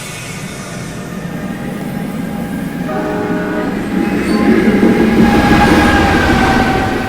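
NJ Transit commuter train approaching and getting steadily louder, its horn sounding from about three seconds in.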